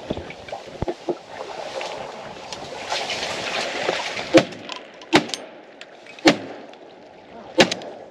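Four sharp knocks, roughly a second apart in the second half, over a steady hiss of wind and water.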